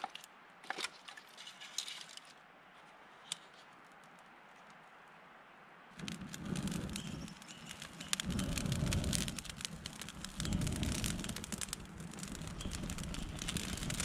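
Campfire catching: a few sharp snaps at first, then about halfway in a dense crackling and popping sets in suddenly, with a low rushing sound that swells and fades three times.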